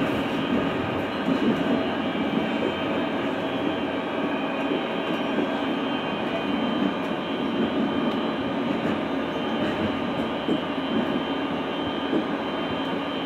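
A Škoda 13T low-floor tram heard from inside while it runs along the street: a steady rolling and running noise with faint steady tones over it.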